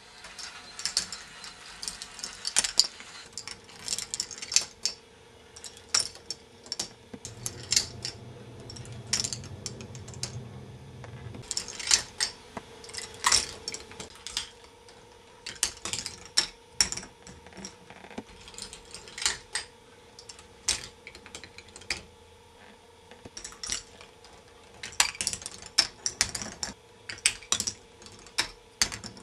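K'nex ball machine running: small balls clicking and clattering irregularly along the plastic tracks and lifts, over the faint steady hum of its motorised lifts.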